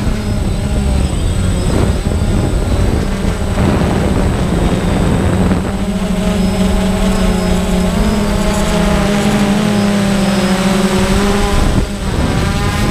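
Quadcopter drone's electric motors and propellers, heard from the drone's onboard camera: a loud, steady whine that rises and falls in pitch as the throttle changes, with wind rush underneath.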